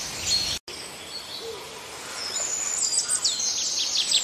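Small birds chirping in quick, high, repeated calls and trills, breaking off for an instant about half a second in and growing busier near the end.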